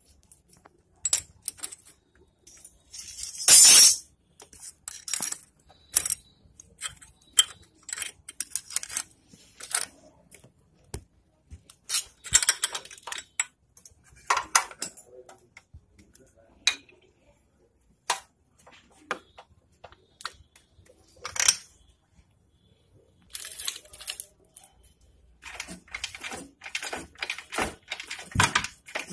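Scattered metallic clicks and clinks of hands and small parts being handled on a Yamaha RX100's two-stroke cylinder head, with a few short, louder scraping noises; the engine is not running.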